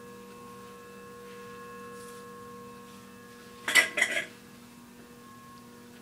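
Dayton 4C854 56-inch heavy-duty commercial ceiling fan running with a steady motor hum made of several level tones. A little over three and a half seconds in, a brief loud noise in two quick bursts cuts over it.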